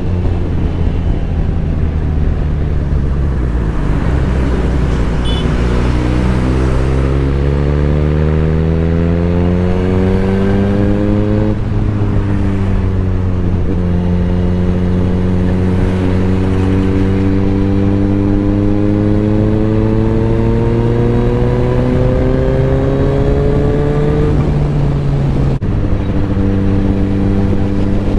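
Suzuki GSX-S1000's inline-four engine heard from the rider's seat at highway speed. It runs steadily at first, then its pitch climbs for several seconds under acceleration and falls sharply on an upshift just before halfway. It then climbs again in a long, slow pull before falling back near the end and settling to a steady cruise.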